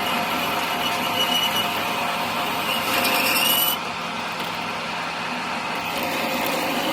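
A power tool working on a steel socket, grinding or cutting over a steady machine hum; the high-pitched cutting noise swells about three seconds in and stops abruptly a little before four seconds.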